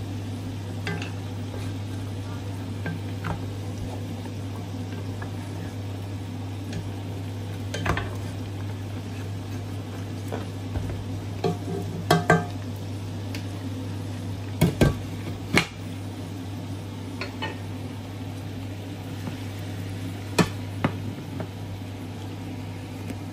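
A wooden spoon stirring beef in a metal cooking pot, with a low sizzle and a handful of sharp knocks and clanks of spoon and pot, a few of them close together about 12 and 15 seconds in. A steady low hum runs underneath.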